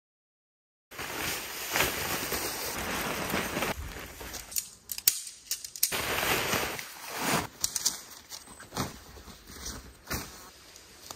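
Nylon tent fabric and bedding rustling and crinkling as they are pulled up, gathered and stuffed into a backpack. The sound starts about a second in, with a few sharp clicks among it.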